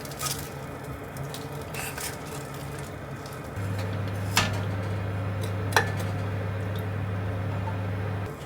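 Dishes and cutlery clinking in a kitchen: light clicks, then two sharp ringing clinks. A steady low electrical hum from an appliance starts a few seconds in and stops near the end.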